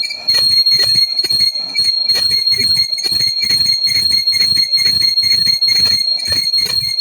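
A lathe cutting tool turning the lock-up friction face of a ZF 6HP21 torque converter housing. It makes a steady high whine with a pulsing beat about three times a second, as the cut comes and goes each revolution. The beat means the worn surface is still uneven.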